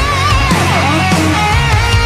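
Loud rock music with electric guitar, a lead line sliding up and down in pitch over a steady low part.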